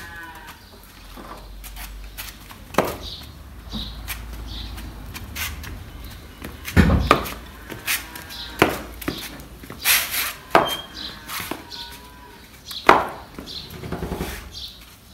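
Irregular knocks, taps and clatters from a parked Royal Enfield Bullet motorcycle being handled and wiped down by hand.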